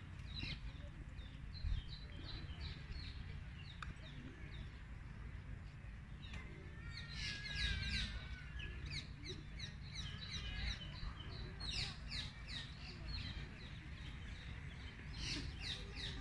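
Birds chirping in the trees with many short, high, falling calls, denser about halfway through and again near the end, over a steady low rumble.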